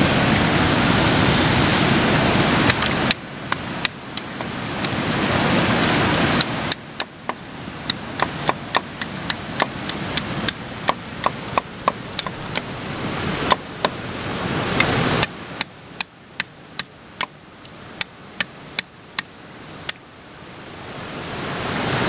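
Machete chopping at a coconut, sharp strikes coming about two to three a second from about three seconds in, stopping near the end, over the steady wash of surf.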